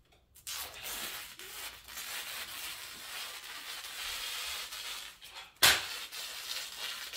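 Painter's tape being peeled slowly off the tile floor along the base of a freshly painted panel: a long, steady ripping, with one sharp snap about five and a half seconds in.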